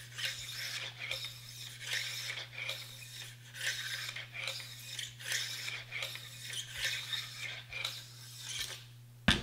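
Bronze-bristle bore brush on a cleaning rod scrubbing back and forth through an AR-15 barrel, rasping with each stroke about every half second as it loosens fouling. A steady low hum runs underneath, and a sharp knock comes near the end.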